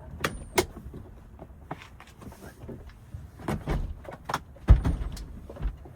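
A 1999 Honda Odyssey's rear seat being unlatched and lifted out: sharp clicks and clunks of the seat latch and lever, with one heavy thump about three-quarters of the way through as the seat comes free or is set down.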